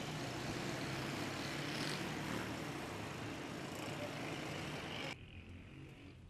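Street noise of motor vehicles running and idling, with a steady low engine hum. It cuts off abruptly about five seconds in, leaving much quieter surroundings.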